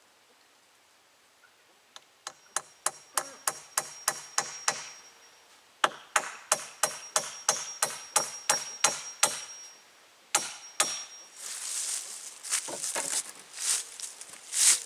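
A hammer drives a nail into a wooden fence rail and post in two quick runs of blows, about four a second, each strike with a metallic ring. Two more blows follow, then rustling and a single loud knock near the end.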